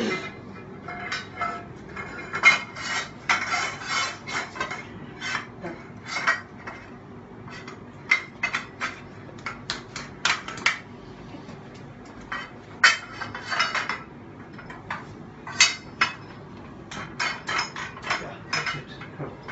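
Irregular clinks, clacks and knocks of a Mighty Foot stand's solid bar being fitted onto its support legs.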